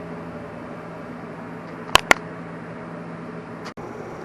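Steady low hum of workshop background noise, with two sharp clicks about two seconds in, a fraction of a second apart.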